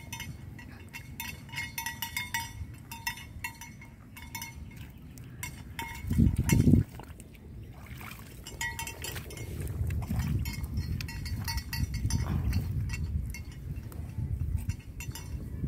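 Water buffalo at a muddy wallow, with light metallic clinks repeating through the first half. About six seconds in comes a loud, low sound lasting about a second, followed by a low rumbling noise from the animals in the mud.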